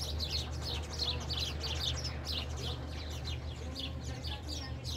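A flock of many birds chirping together, a dense run of quick, overlapping, downward-sliding chirps.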